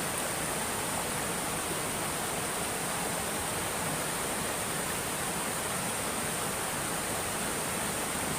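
Steady rushing noise of running water, even throughout, with a constant high hiss above it.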